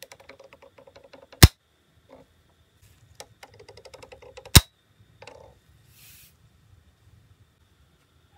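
Lion figurehead of a Chogokin Thousand Sunny ship model being turned by hand: a rapid run of small ratcheting clicks from its joint ends in a loud sharp snap, and this happens twice, the second snap about three seconds after the first.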